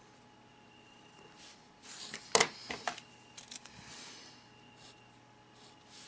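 Pen writing on paper: faint scratching strokes, with a sharp click about two and a half seconds in and a few lighter clicks after it.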